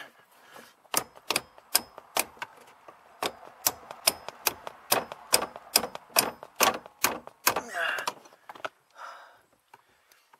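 A hammer striking metal on a car's steering shaft under the dashboard: a run of about twenty sharp, ringing metallic blows, two to three a second, that stops a little before the end.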